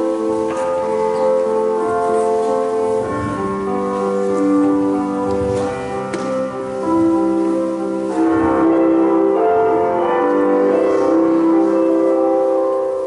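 Slow instrumental background music of long held notes, one melody line moving over sustained chords.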